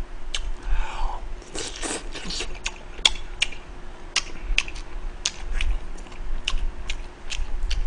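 Close-miked mouth sounds of a person chewing food, with many short, sharp crunches scattered throughout.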